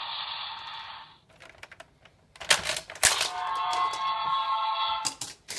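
A DX Daikaiten Cannon toy: a sound effect from its speaker ends about a second in. Loud plastic clicks and clacks follow as the toy and its Ressha train are worked. Then a held electronic tone plays from the speaker for about two seconds, and a few more clicks come near the end.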